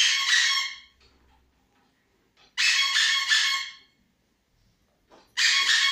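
Handheld noise-making toy sounded three times, each burst a high squeaky tone lasting about a second, repeated every two to three seconds. It is played close behind a toddler to check whether he responds to sound through his newly switched-on cochlear implant.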